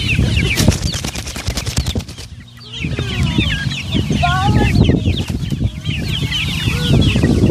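A flock of brown chickens clucking and chirping, many short high calls overlapping at once, with a few longer sliding calls. A rapid run of clicks sounds in the first two seconds, and the flock goes briefly quieter about two and a half seconds in.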